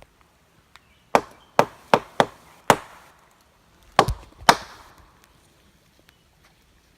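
Wood knocking: a rhythmic pattern knocked on a tree, five sharp knocks in quick succession and then two more after a short pause.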